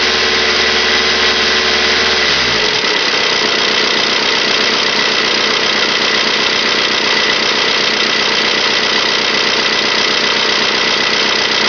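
2002 Volkswagen Jetta TDI 1.9 L four-cylinder turbodiesel running with a steady diesel clatter. About two seconds in, a lower hum drops in pitch and fades away while the clatter carries on.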